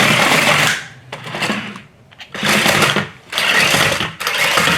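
Small electric motors of a toy remote-control stunt car whirring in short spurts, about five bursts of half a second to a second each, as it is driven in spins.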